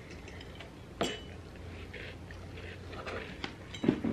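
Forks and knives clicking and scraping on plates during a meal, a few separate clicks, one about a second in and a louder one near the end.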